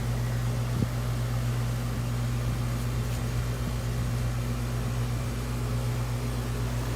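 Steady low mechanical hum of running machinery, with a single short click about a second in.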